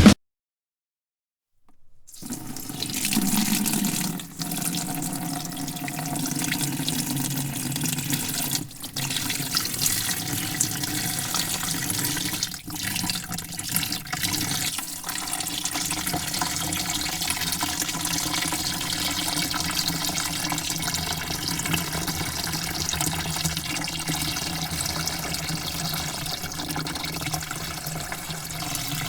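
Water pouring steadily into a bucket, a continuous splashing rush that starts about two seconds in after a silence, with a few brief breaks in the flow.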